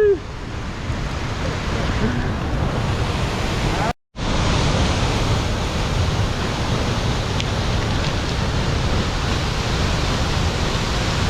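Steady rushing of a waterfall, an even roar with no distinct tones. About four seconds in the sound cuts out completely for a moment, then comes back.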